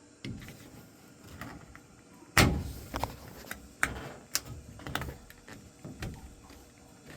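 A series of knocks, clicks and a scrape from parts of a furnace being handled, with one sharp bang about two and a half seconds in and smaller knocks after it.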